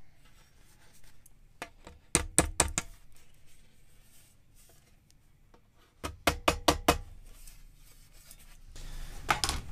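Soft-faced mallet tapping the flange of a sheet-aluminum nose rib over a form block to shape its nose radius. Two quick runs of about six blows each, about two seconds in and again about six seconds in, with a few fainter taps near the end.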